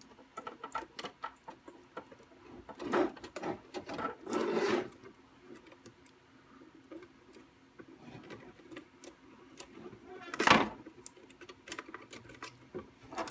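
Light clicking and rattling of the plastic printer housing and peel-and-present module as its wiring harness is worked through a small hole, with a few louder scrapes of plastic on plastic, the loudest about ten seconds in.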